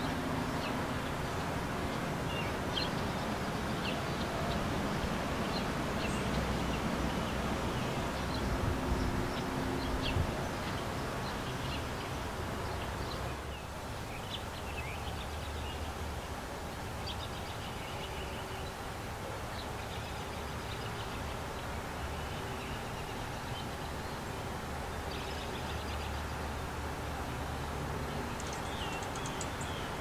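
Small songbirds chirping and calling in short, scattered notes, with a quick high trill near the end, over a steady low background rumble. The background changes and drops slightly about halfway through.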